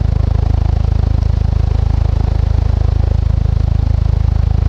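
Casablanca Lanai ceiling fan with short blades spinning at high speed (around 300 RPM), its blades chopping the air in a steady, rapid, even pulsing whoosh.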